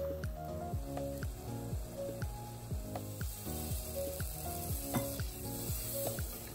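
Background music with a steady beat over the sizzle of an onion-tomato masala frying in oil in a clay pot, stirred with a wooden spatula.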